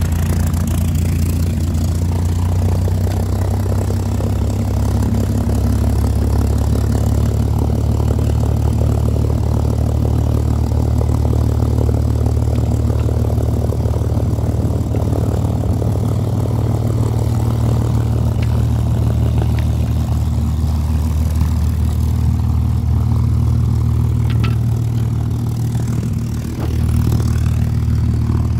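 A small engine idling steadily: a low, even drone with a short dip in level near the end.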